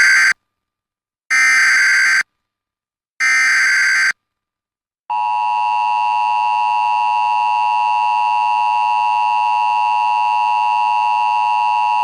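Emergency Alert System broadcast for a flash flood warning: the end of the first SAME header data burst, then the second and third, each a harsh electronic screech about a second long. After a pause of about a second, the steady, loud two-tone EAS attention signal starts about five seconds in and holds.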